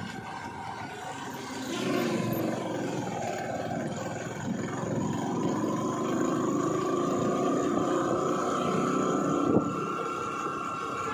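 Engine and road noise of a vehicle driving along a road, heard from on board. Through the second half a whine climbs slowly in pitch as the vehicle gathers speed.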